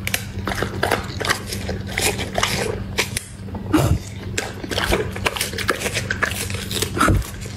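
A Labrador retriever biting and chewing watermelon flesh and rind: a rapid, irregular run of wet crunches and smacks, over a low steady hum.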